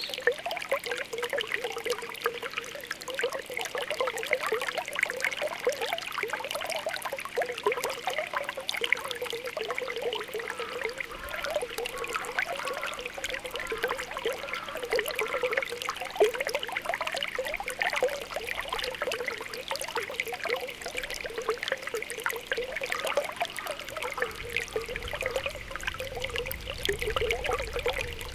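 Spring water welling up from the ground with a continuous run of small popping, bubbling gurgles.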